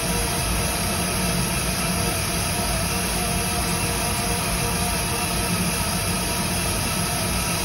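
LEGO Mindstorms Robot Inventor motors running steadily, turning the rubber wheels that spin a plastic ornament: an even hum with faint whining tones that does not change.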